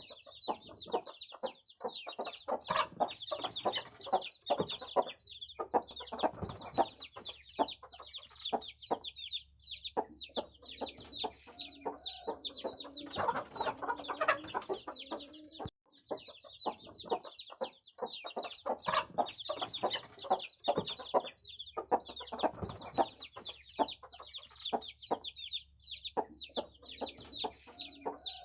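A brood of aseel chicks peeping nonstop in rapid, high chirps that bend in pitch, with occasional lower chicken clucks. The sound cuts out for a moment about halfway through.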